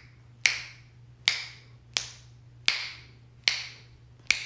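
A hand snapping its fingers six times in a steady row, about one snap every three-quarters of a second, each one short and sharp.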